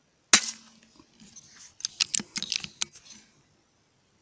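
A single sharp shot from a PCP air rifle a moment in, followed by about two seconds of quick clicks and rattles from handling the rifle.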